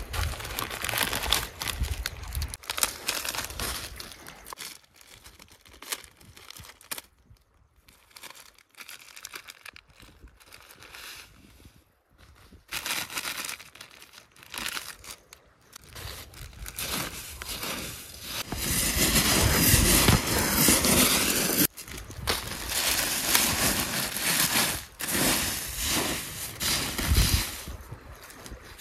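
Plastic crinkling and rustling as a printed snack packet is opened and its snack mix is poured into a clear plastic bag of puffed rice and stirred in by hand. It comes in irregular bursts, quieter for a while before the middle and loudest about two-thirds of the way through.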